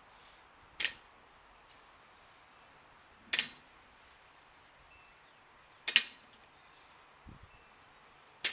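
Loaded barbell with bumper plates clinking sharply as it touches down at the bottom of each deadlift rep: four clicks, about two and a half seconds apart.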